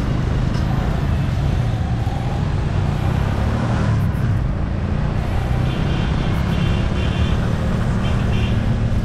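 Motorcycle on the move: steady engine and road rumble. A run of short high-pitched beeps comes in about six seconds in.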